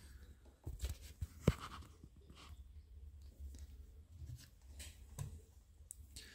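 Faint clicks and taps of small tools and parts being handled on a workbench, with one sharper click about a second and a half in.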